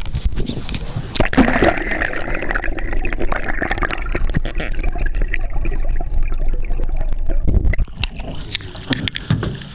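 Water rushing and gurgling around a camera pushed underwater on a pole, with many short clicks through it; it quietens somewhat about eight seconds in.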